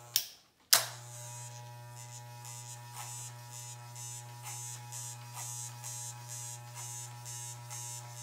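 Corded Wahl electric hair clippers fitted with a number four guard. After two sharp clicks in the first second, they hum steadily as they are run up the side of the head, with a faint rasp on each stroke. They barely cut, because the hair is already shorter than the four guard.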